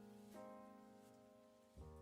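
Quiet background music: soft keyboard chords, a new one struck about a third of a second in and another near the end, each fading away.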